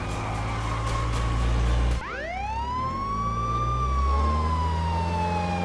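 Police car siren wailing: it winds up steeply about two seconds in, then slowly falls in pitch, over a low steady engine hum. Before it, a low steady rumble cuts off abruptly.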